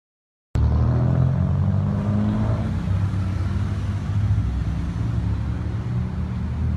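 Street traffic: cars driving past with their engines running, a steady low rumble that starts suddenly about half a second in.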